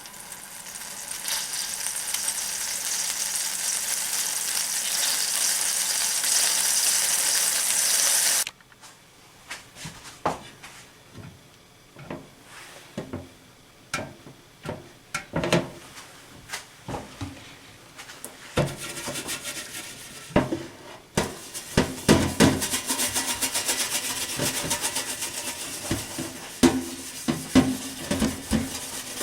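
Water spraying from a sink shower head for about eight seconds, then shut off suddenly. A handled metal scrubber then scrapes cookware amid clatter and knocks of pots and utensils, and the spray comes on again with more scrubbing and clatter.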